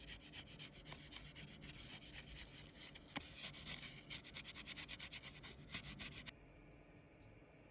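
Gold foil being rubbed down onto a print in quick, scratchy back-and-forth strokes that stop abruptly about six seconds in.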